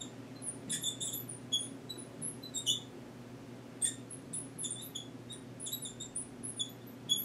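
Marker squeaking on a lightboard's glass as words are written: many short, irregular high-pitched squeaks, one for each stroke.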